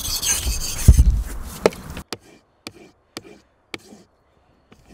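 Steel knife blade drawn across a coarse, cheap water stone in sharpening strokes, a gritty rasping. About two seconds in it drops to near silence, broken by a handful of short sharp clicks roughly half a second apart.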